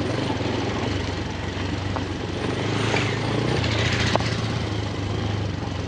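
Motorcycle engine running steadily while riding, with wind rushing past; the engine note drops a little just past halfway.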